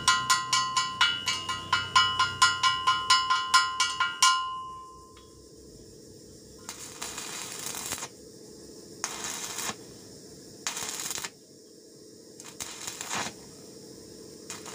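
Background music with a quick plucked-string melody fades out about four seconds in. Then a stick (arc) welder crackles and hisses in four short bursts, each about a second long, as the electrode is struck on a broken bolt stub to weld onto it.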